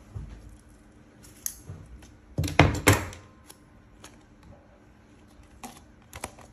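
Crafting materials being handled by hand: a thin plastic cup, paper and double-sided tape rustling and lightly knocking, with a louder, crackly rustle about two and a half seconds in.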